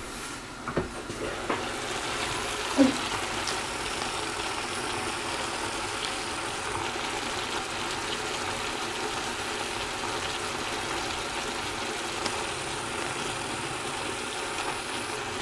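Braised tofu simmering in its red chili sauce in a pan on a gas burner turned low: a steady sizzling hiss, with a few light clinks of the pot lid in the first three seconds.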